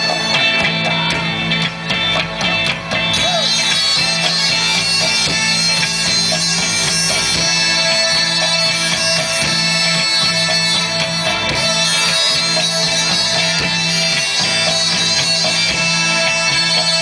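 Live rock band's intro music through the concert PA: a loud, steady droning chord held throughout, with higher lines moving over it.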